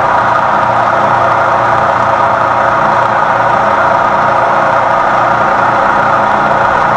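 Lagun knee mill spindle running with an end mill in a Cat 40 tool holder, cutting a metal block: a steady milling noise from the cutter and the spindle's drive.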